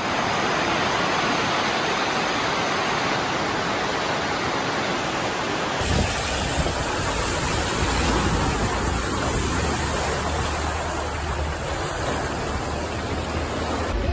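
Rushing floodwater, a steady wash of noise. About six seconds in it changes to water splashing and surging around vehicles driving through a deeply flooded street, over a low engine rumble.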